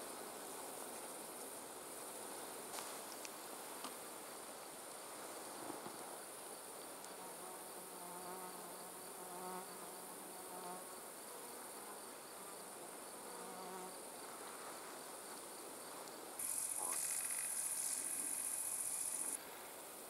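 Summer insects: a steady high chirring of crickets or grasshoppers, with a flying insect buzzing past for several seconds in the middle. Near the end a much louder high-pitched insect chirr close by lasts about three seconds and stops suddenly.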